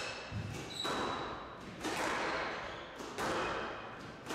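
Squash rally at fast pace: a series of sharp strikes as the ball is hit by the rackets and smacks off the walls, with short high squeaks from shoes on the court floor.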